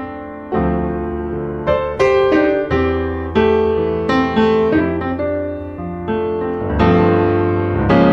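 Background piano music: notes and chords struck roughly once a second and left to ring.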